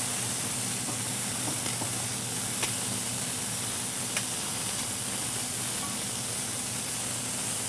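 Smash burger patties and onions sizzling steadily on a hot cast iron griddle, with a couple of light clicks of metal tongs and spatula against the griddle about a third and halfway through.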